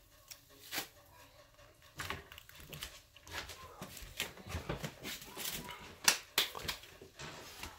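Kitchen work sounds: a scattered run of clicks and knocks of utensils and containers being handled on a counter, growing busier after about two seconds, with the sharpest knock about six seconds in.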